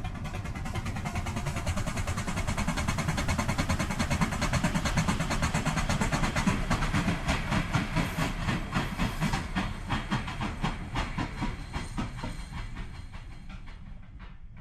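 A steam train passing: a fast, even clatter with hiss that grows louder over the first few seconds, is loudest around the middle, and fades away over the last few seconds.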